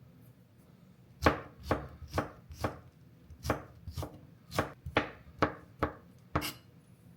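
A knife chopping on a cutting board: eleven sharp, even chops at roughly two a second, starting about a second in and stopping shortly before the end.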